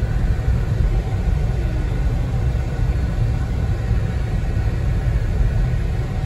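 Steady low rumble of a car driving on a paved road, heard from inside the cabin: engine and road noise.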